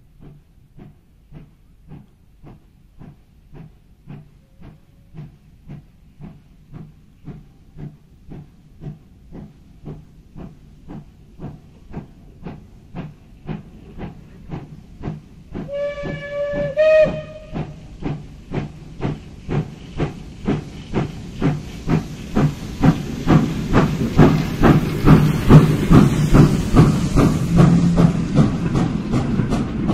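Small steam tank locomotive working a short train, its exhaust chuffing evenly about twice a second and growing louder as it approaches and passes. About halfway through there is a short steam whistle blast that steps up in pitch at its end. Near the end a steam hiss joins the beats.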